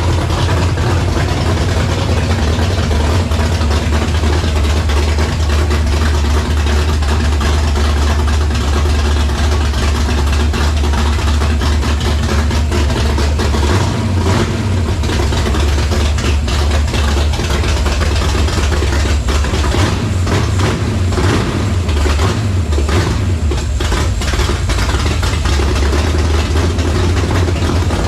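Carbureted engine of a Fox-body Mustang running at idle, steady at first, then wavering unevenly in the middle and again later. The owner takes the rough running for a carburetor fault, a plugged mid-range circuit or a big vacuum leak.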